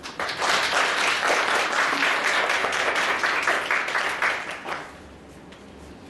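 Audience applauding for nearly five seconds, then fading out.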